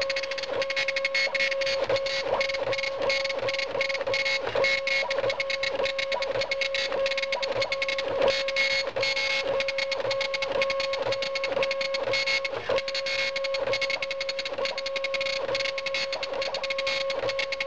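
Dot matrix impact printer printing: a steady buzzing tone from the print head, broken by regular clacks about twice a second.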